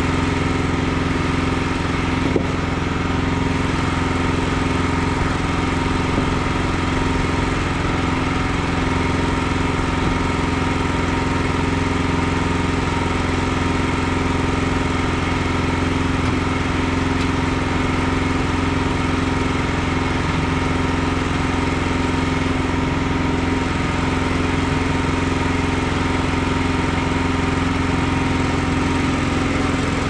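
Wood-Mizer LX55 portable bandsaw mill's engine running steadily at a constant speed, with the blade not yet in the log. One small click about two seconds in.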